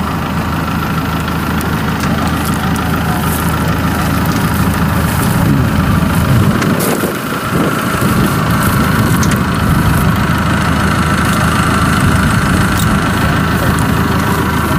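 A farm machine's engine idling steadily, with a brief dip and change in engine speed about seven seconds in.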